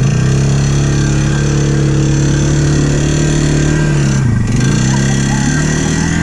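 ATV engine held at high revs under load, its pitch dropping briefly about four seconds in and then climbing back. The machine is stuck in mud with its wheels spinning.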